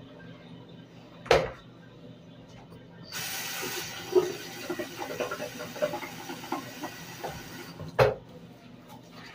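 A sharp knock about a second in, then a bathroom sink tap runs for about five seconds as a toothbrush is wetted under it, with small splashes, stopping abruptly just before a second sharp knock.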